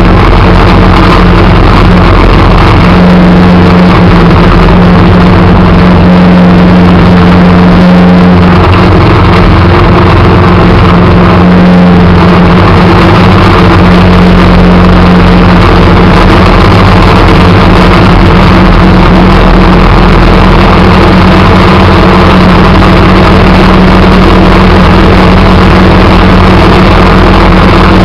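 Engine of a snow-plowing vehicle running steadily while it pushes snow, loud and close to the microphone, its pitch shifting slightly a few times.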